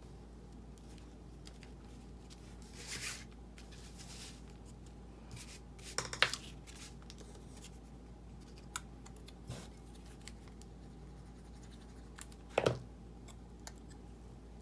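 Paper and card pieces being handled and pressed onto a greeting card: soft rustles with scattered small clicks and taps, the sharpest about six seconds in and again near the end, under a low steady hum.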